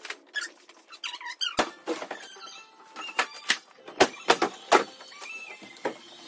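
A string of sharp knocks and short squeaks from a large plasterboard sheet being handled and stood against timber wall framing.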